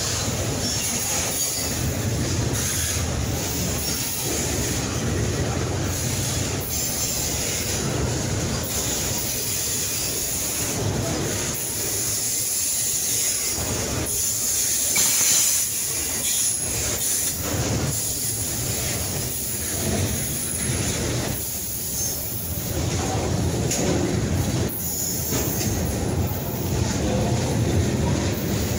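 Freight train of boxcars and tank cars rolling past at close range: a steady rumble of steel wheels on the rails, with high-pitched wheel squeal coming and going.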